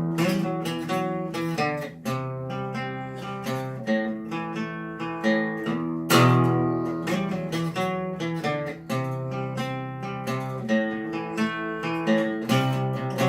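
Acoustic guitar playing a song's instrumental introduction: a run of picked notes, with a full strummed chord struck about six seconds in.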